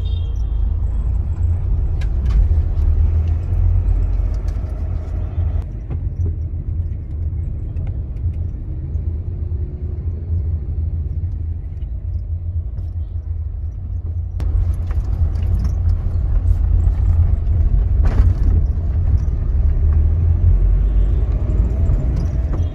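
Steady low rumble of road and engine noise inside a moving car's cabin. The higher hiss drops away for several seconds in the middle, then returns.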